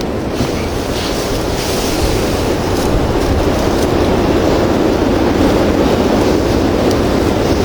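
Blizzard wind blowing hard across the microphone: a steady rushing with a low buffeting rumble that grows a little stronger about three seconds in.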